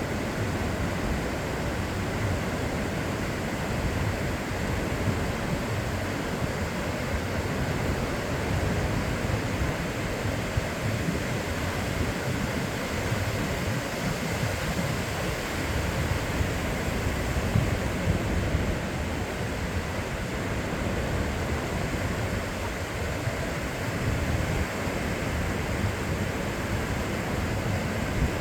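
Ocean surf washing on a beach: a continuous, even rush of waves with only slight swells in loudness.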